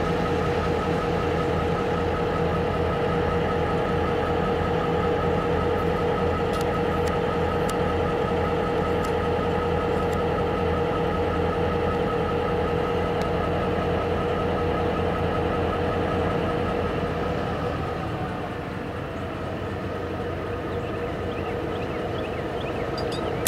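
Diesel engine of a Norfolk Southern EMD GP38-2 locomotive, a 16-cylinder two-stroke, running close by with a steady drone and whine. About three-quarters of the way in it eases off and gets a little quieter.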